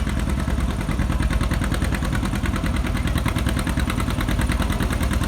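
John Deere 60's two-cylinder engine running steadily with an even popping exhaust beat.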